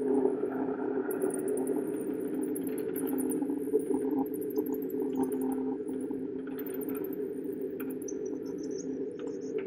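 Installation soundscape: a steady low drone of several held tones, with trains of rapid, very high-pitched, cricket-like chirps coming and going over it.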